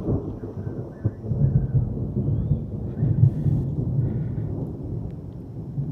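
Thunder rumbling continuously from an approaching thunderstorm, swelling about a second and a half in and again around three seconds in.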